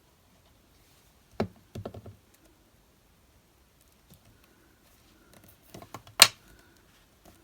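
Small items being handled and set down on a craft desk: a knock about a second and a half in, a few quick taps right after, and scattered light taps later, then one sharp click near the end, the loudest sound.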